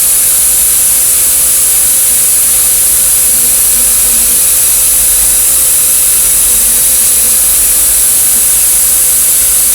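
Steady loud hiss with a constant faint hum underneath, unchanging throughout, with no taps or knocks.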